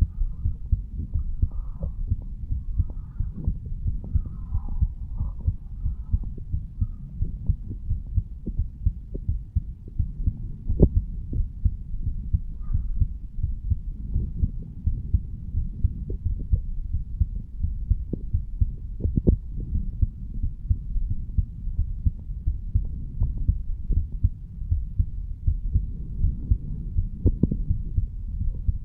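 A man's heartbeat recorded over the mitral valve area of the chest: a steady run of short, low thumps, beat after beat, over a low rumble.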